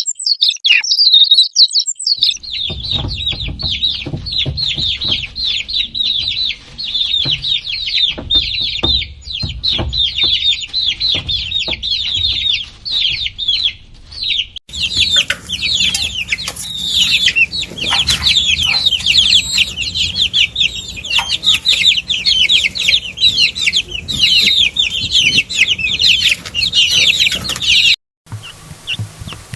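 A crowd of baby chicks peeping non-stop, many rapid high-pitched falling peeps overlapping. The sound changes abruptly a few times, where the clips are cut together.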